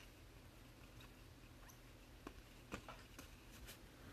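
Near silence with a few faint, short clicks of baseball cards being slid through a stack in the hand.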